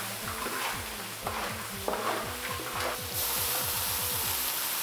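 Metal spatula scraping and stirring meat in a large iron wok as it sizzles. About three seconds in, water goes into the hot wok and a loud, steady steam hiss takes over.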